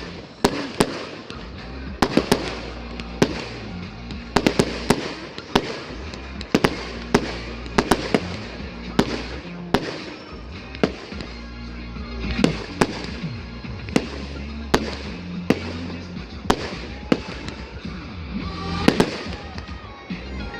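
Fireworks display: shells bursting in quick irregular bangs, often several a second, over music from loudspeakers with a steady bass line.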